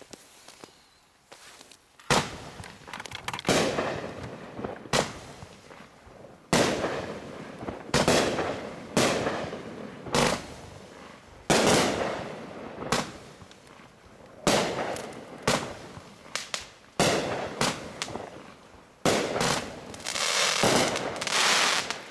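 A 500g consumer firework cake firing shot after shot: about fifteen sharp bangs, roughly a second apart, each trailing off. Near the end comes a longer, denser hissing stretch.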